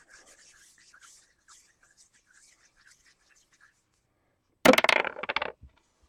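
A single six-sided die rattled faintly in the hand, then thrown, clattering and bouncing on a hard surface in a quick run of sharp clicks for about a second near the end, the loudest part.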